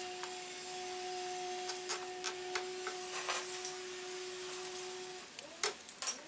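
A small electric motor hums at a steady pitch, cutting out about five seconds in and spinning back up near the end. Light clicks and knocks of hand work on metal fittings come through now and then.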